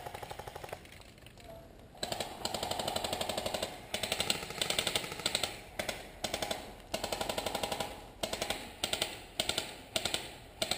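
Airsoft guns firing on full auto: a rapid, even clatter of shots, about fifteen to twenty a second, in repeated bursts. One burst comes at the start, then a short lull, then a long burst of about two seconds followed by many shorter bursts.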